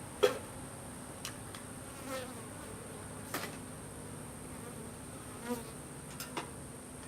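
Honeybees buzzing around an opened hive, stirred up, with single bees swelling and fading as they fly close past the microphone several times. A few sharp clicks or knocks stand out, the loudest about a quarter second in.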